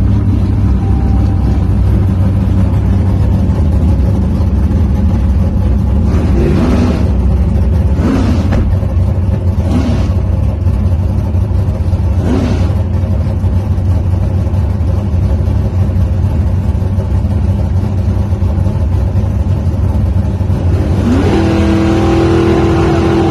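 Drag race car engines at a dragstrip, rumbling loudly at idle, with a few short throttle blips. Near the end an engine revs up, rising in pitch.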